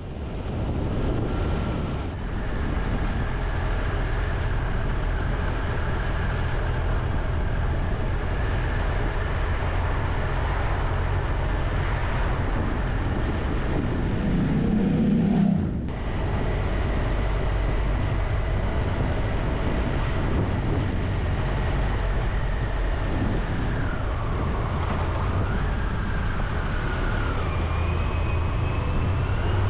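Triumph Tiger 1200 motorcycle's three-cylinder engine running under way, heard from on the bike as a steady low rumble with road and wind noise. Its pitch rises and falls with throttle and gear changes, and the sound dips briefly about halfway through.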